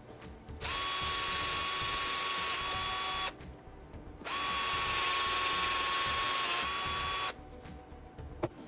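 Cordless drill drilling into an aluminium angle bracket held in a vise: two runs of about three seconds each, a steady whine that dips slightly in pitch near the end of each run.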